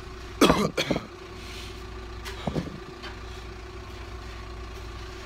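Steady low mechanical hum with a constant tone under it. Two short loud bursts break in, the first and loudest about half a second in, a smaller one around two and a half seconds.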